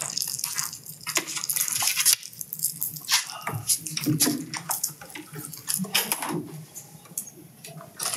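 Scattered clicks, rustles and small clatters of objects and papers being handled close to a microphone at a meeting table, over a faint low hum.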